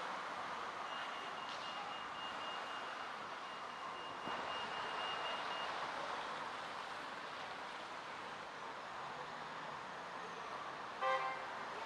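Town-centre street traffic noise with a high electronic beeping that repeats rapidly for about five seconds from a second in, then a brief car horn toot near the end.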